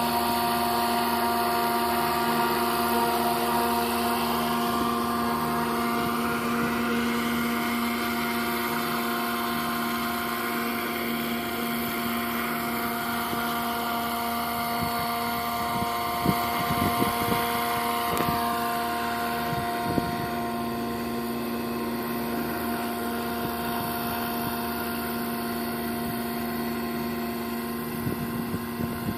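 Scale radio-controlled helicopter with an AS350 Écureuil (AStar) body, running with a steady whine of motor and rotors. The pitch drops slightly about eighteen seconds in, and there are brief rumbles of wind on the microphone.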